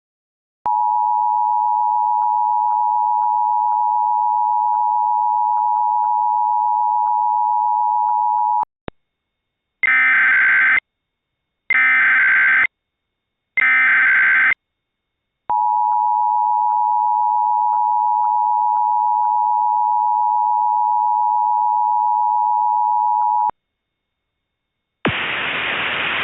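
Emergency Alert System tones: the steady two-tone attention signal (853 and 960 Hz) for about eight seconds, then three one-second bursts of the warbling SAME header data, then the two-tone attention signal again for about eight seconds. A hiss of static starts near the end.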